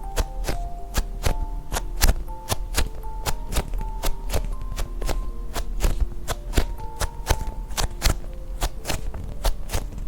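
Background music with a gentle melody of held notes, over many irregular sharp taps and clicks, several a second.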